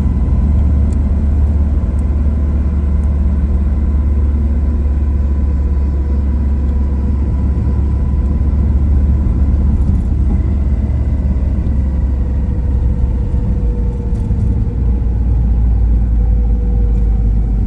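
Steady low rumble of a car in motion, with faint whining tones that drift slowly down in pitch in the second half.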